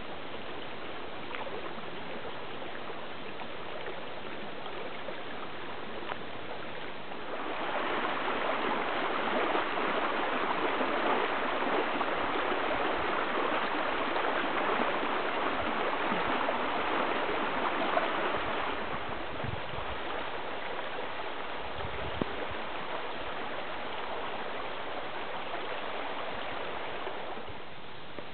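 Small woodland creek running high with storm runoff, a steady rush of flowing water. It gets louder about a quarter of the way in, where a faster, winding stretch of the stream takes over, and softens again about two-thirds through.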